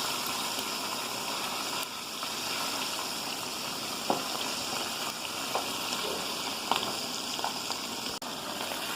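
Chicken pieces frying in hot oil: a steady sizzle with a few sharp pops and crackles.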